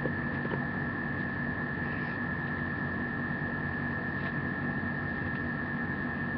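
Steady hiss and electrical hum with a constant thin high whine: the background noise of a webcam microphone, with no clear activity sounds over it.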